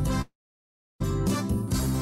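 Cha-cha medley backing music with a steady beat that cuts out to dead silence about a quarter second in and starts again about a second in, at the break between one song of the medley and the next.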